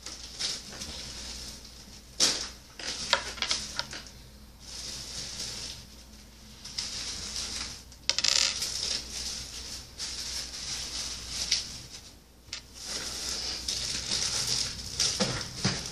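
Metal rings clinking and tapping together as they are slipped onto fingers: a scattered series of small clicks and jingles with rustling in between.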